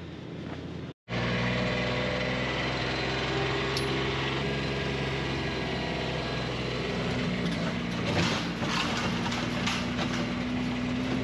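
Golf cart running steadily as it drives along, a small motor's even hum.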